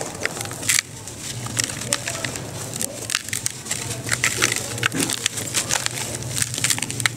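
Dry sand-cement lumps crumbling and crunching in the hands, with grains and fragments pattering into a plastic tub as a dense run of crisp, irregular crackles.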